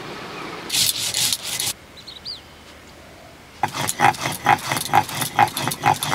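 Stone roller (nora) rubbed back and forth on a flat grinding stone (sil), grinding mustard seeds, poppy seeds and green chillies into a paste. There is a short scrape about a second in, then from just past halfway a regular run of scraping strokes, about two a second.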